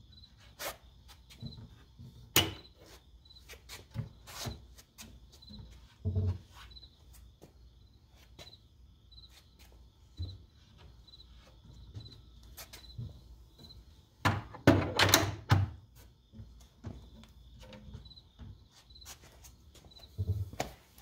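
Hinged plywood cabinet doors being handled and pushed shut: scattered wooden clicks and thunks, with a louder cluster of knocks about 15 seconds in. A faint high chirp repeats about every 0.7 seconds.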